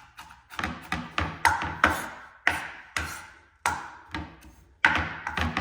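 Large kitchen knife chopping on a cutting board: a run of uneven, sharp chops, roughly two a second.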